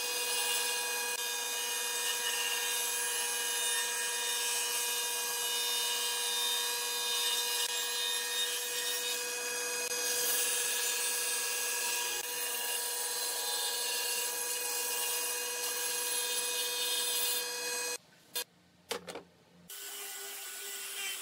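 Table saw running with its blade ripping a wooden board: a steady motor and blade whine over the cutting noise, stopping abruptly about 18 seconds in. After a brief near-silent gap with a couple of clicks, an angle grinder with a sanding disc starts sanding wood, more quietly.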